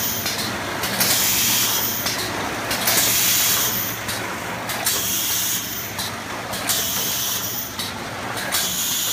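Yongxin GT1B7 automatic tinplate single slitter running: a steady low machine hum under repeated bursts of compressed-air hiss from its pneumatic sheet handling, coming about once every second or so.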